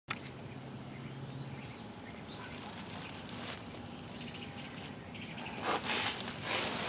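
Handling noises as the removed power steering pump is picked up and turned over on a bench covered with rags and a plastic bag. Soft rustling and knocks come in two louder bursts about six seconds in and near the end, over low background noise.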